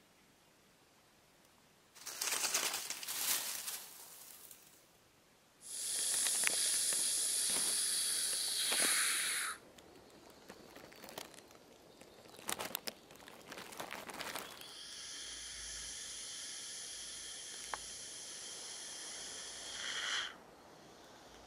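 Grass snake hissing defensively: two long, steady hisses of about four and five seconds, with rustling in dry leaf litter before and between them.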